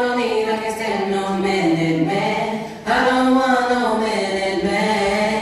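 Sung vocals with little backing, in long held notes that glide up and down, with a brief break about halfway through: the opening of the dance track.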